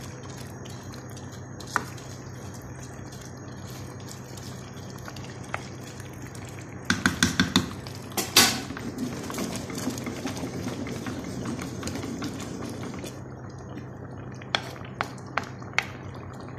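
Wooden spoon working long-grain rice into simmering tomato broth in a nonstick pot. About seven seconds in the spoon gives a quick run of five taps on the pot and then a louder knock, followed by a few seconds of stirring and bubbling. Scattered single clicks of the spoon against the pot come before and after, over a steady low hum.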